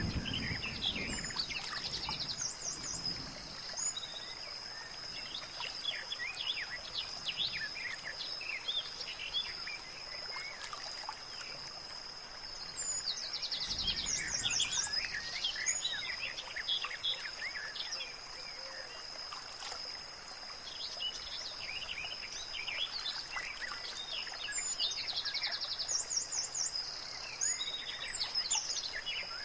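Nature ambience of many birds chirping and singing, with a burst of rapid trilling that comes back three times. Underneath is a steady high tone, like an insect drone, over a soft background hiss.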